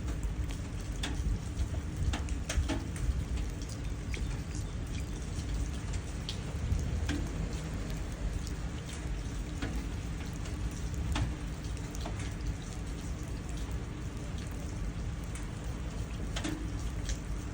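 Steady rain, with individual drops splashing into puddles as scattered distinct ticks over a constant low rumble.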